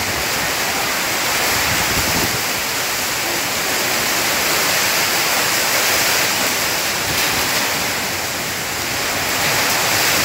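Storm wind and heavy rain thrashing trees and bamboo: a loud, steady rushing that swells a little about two seconds in and eases briefly near eight seconds.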